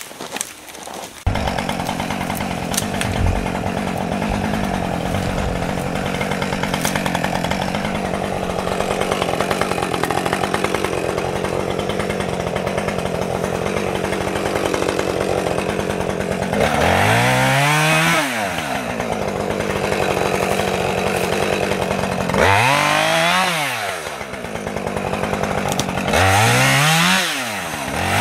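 Chainsaw running steadily after coming in suddenly about a second in, then revved up and dropped back three times in the second half.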